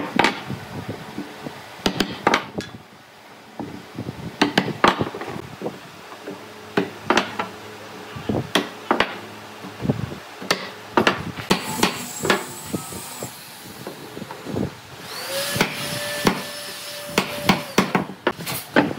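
Irregular sharp wooden knocks and taps as pine slats are knocked down into the glued mortises of a table base. For about three seconds near the end, a steady pitched tone sounds under the knocks.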